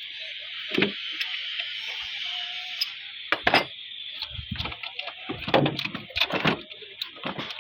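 Irregular metallic clinks and knocks of hand tools and parts being handled, over a steady high hiss.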